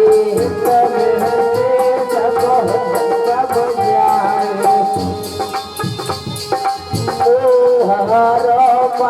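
Indian devotional folk music: a sustained, ornamented melody line over steady percussion.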